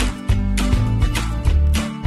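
Upbeat background music with a steady beat over a bass line.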